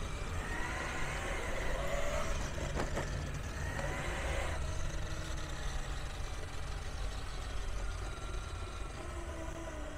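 Custom electric mountainboard rolling over concrete: a steady low rumble from its pneumatic tyres under a whine from the Trampa steel helical gear drive (7:1 reduction). The whine rises slightly in pitch and is strongest in the first half, and there is one sharp click about three seconds in.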